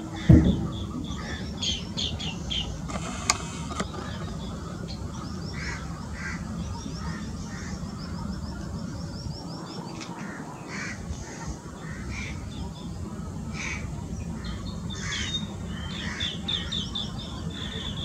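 A flock of green bee-eaters calling: many short, high trills of quickly repeated notes, overlapping and coming throughout, over a steady low background rumble. A single thump just after the start is the loudest sound.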